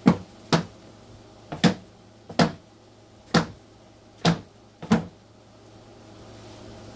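Sharp knocks, about eight over five seconds at uneven spacing, then they stop, over a faint low steady hum.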